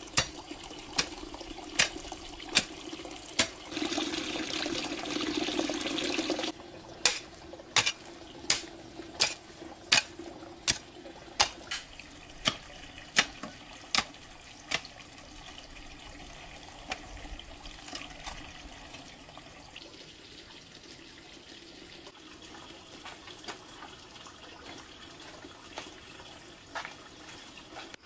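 Water running from a tap for about three seconds, among a steady series of sharp knocks a little over one a second that stop about halfway through.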